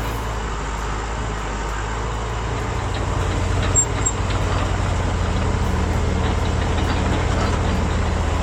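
Remote-control scale construction machine running, with a steady low engine-like drone that grows louder about three seconds in. A sharp click comes just before the four-second mark.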